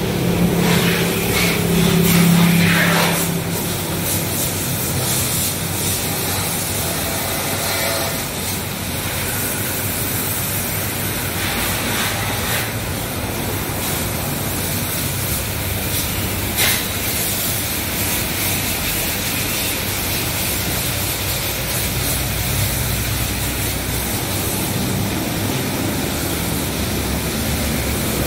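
Water jet from a car-wash hose spraying the underside of a car raised on a lift, a steady hiss. A low hum sounds for the first few seconds, and there is a short sharp click about seventeen seconds in.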